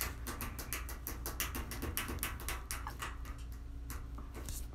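Typing on a phone's on-screen keyboard: a quick, uneven run of light taps and clicks, several a second, over a faint low hum.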